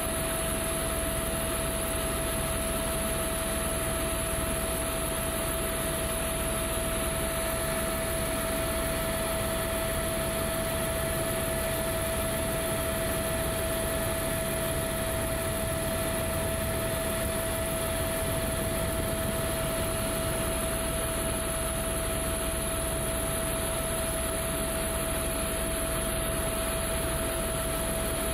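Eurocopter AS350 A-Star single-turbine helicopter in cruising flight, heard from on board: a steady rush of engine and rotor noise with a constant whine running through it.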